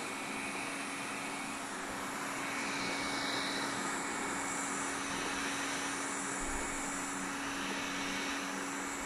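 Xiaomi Mijia 1C robot vacuum running mid-clean: its suction fan gives a steady whooshing noise over a constant hum.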